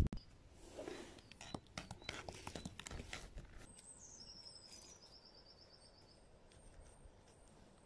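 Quiet outdoor ambience with a few light taps in the first three seconds, then a small songbird singing a short, high, rapid trill about four seconds in, with faint high notes after it.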